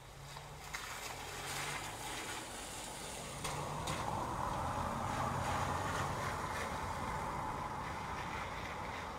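A car driving past on a wet street, its tyres hissing through the water over steady rain. The hiss swells over the first few seconds, is loudest around the middle, then slowly fades.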